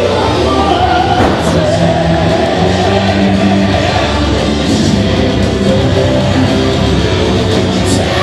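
Loud, intense rock music with electric guitar and a singing voice, playing steadily without a break.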